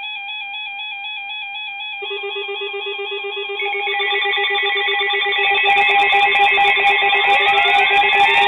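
Several NOAA weather alert radio receivers sounding their alarms at once, set off by an incoming warning. A warbling electronic beep starts first, a steady pulsing lower beep joins about two seconds in and more alarm tones pile on, with rising siren-like glides near the end as the sound grows louder.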